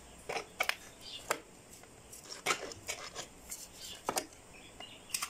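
Small metal hand trowel scooping potting mix and pushing it into a cut plastic-bottle planter: about ten light scrapes and taps at an uneven pace.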